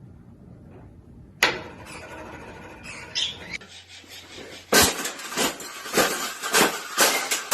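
A single sharp knock about a second in, another a little later, then from past halfway a run of sharp knocks or clinks, about two a second.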